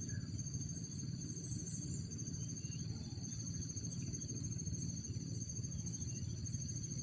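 Insects chirring steadily in two high, even tones over a constant low hum.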